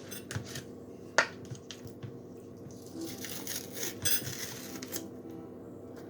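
Clicks, taps and rustling from handling an ice cream pint container: one sharp click about a second in, then a stretch of rustling and scraping about three to four seconds in.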